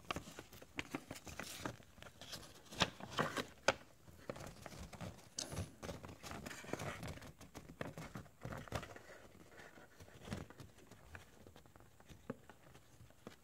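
Paper warranty leaflet being flipped through and unfolded by hand: soft paper rustling with scattered short crinkles and taps.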